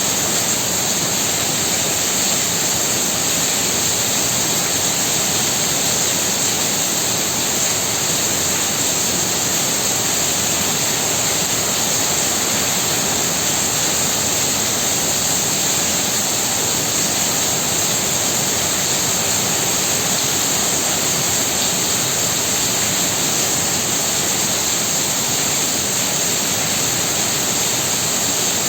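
Heavy rain falling hard and steadily, a dense, even hiss with no letup.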